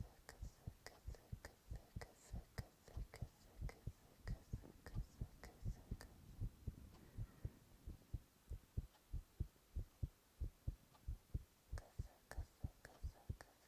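A human heartbeat picked up by a microphone held to the chest: low thumps in a quick, even rhythm, many beats heard as a double thump.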